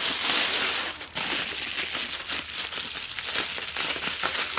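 Plastic bubble wrap crinkling and crackling as hands unwrap a bubble-wrapped camera part. It is loudest in the first second, then goes on as a steady rustle with small crackles.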